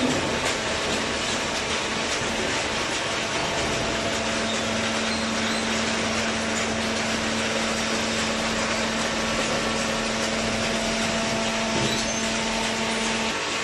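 Hydraulic baler machine running steadily, a constant mechanical noise with a hum that strengthens about four seconds in and drops out near the end.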